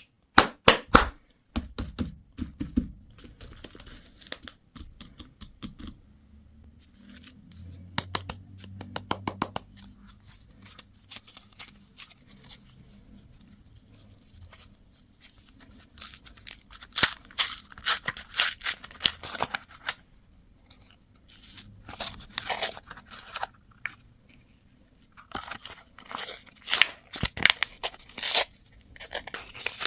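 Candy and toy packaging being torn open and crinkled by hand, in several bursts of crackling and rustling with quieter pauses between.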